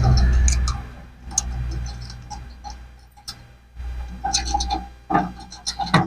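Rose-ringed parakeets making a string of short clicks and chirps, sparse at first and busiest over the last two seconds. A low rumble fills the first second.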